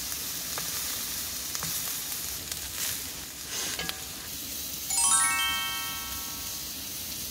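Beef and onions sizzling as they fry, with a few light clicks. About five seconds in, a bright chime rings out and fades away.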